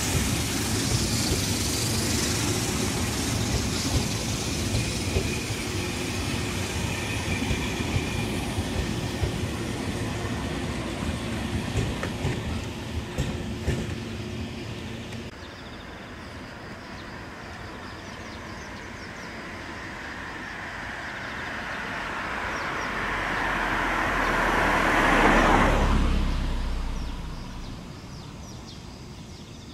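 Electric multiple-unit commuter train running slowly, with steady wheel and motor noise. After an abrupt cut, a train approaches and passes, growing louder and falling in pitch as it goes by, then fading.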